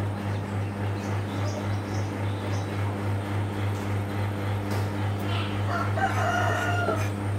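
A rooster crowing once near the end, a single call of under two seconds, over a steady low hum.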